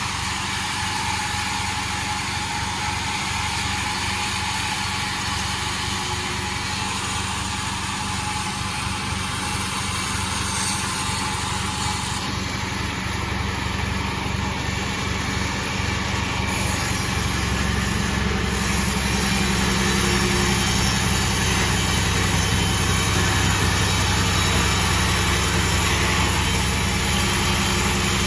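Sawmill machine running steadily; its drone grows louder and fuller a little past halfway through.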